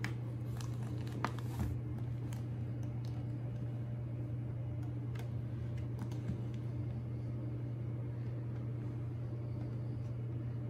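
Steady low room hum, with a few light clicks and taps as hands turn a carbon-fibre motorcycle helmet.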